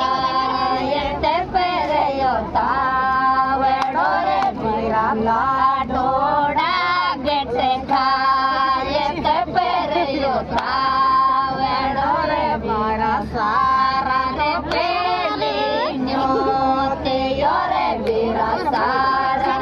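Women singing a Rajasthani Mayra geet (bhat folk song) in high voices, phrases ending in long held notes.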